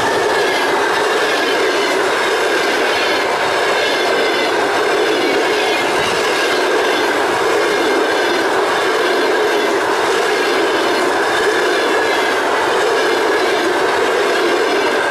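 Passenger coaches of a long train rolling past close by at speed: a loud, steady rush of wheels on rail, with a high steady ringing tone from the running gear.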